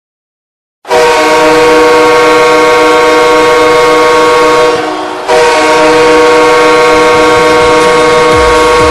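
Hockey arena goal horn blowing two long blasts, each a steady chord of several tones lasting about four seconds, with a short break between. A thumping music beat comes in near the end as the second blast stops.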